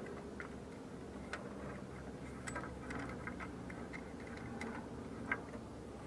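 Faint, irregular metallic clicks from a spark-plug socket on an extension as a spark plug is started back into the cylinder head by hand.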